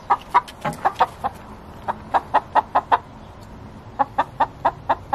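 A hen's egg song: runs of short, sharp clucks, about four or five a second, broken by brief pauses. It is the song a hen typically sings after she has laid an egg.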